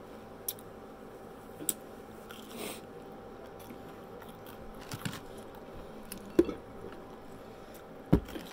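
A person eating fried onion rings close to the microphone: scattered crunchy bites and chewing, with two louder knocks in the second half.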